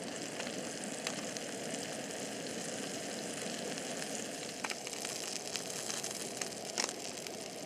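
A small whole brook trout sizzling in butter in a frying pan: a steady frying hiss with a few sharp pops of spitting fat.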